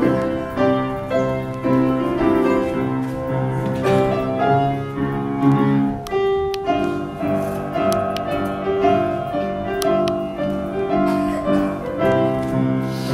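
Slow instrumental keyboard music, with held notes and chords changing at an unhurried pace.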